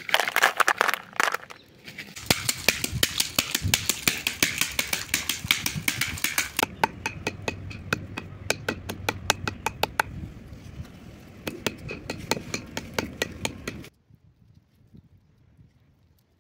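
Dry tamarind pods being beaten with a wooden stick on a wooden board to crack the brittle shells: a run of sharp knocks, about three or four a second, that stops suddenly near the end.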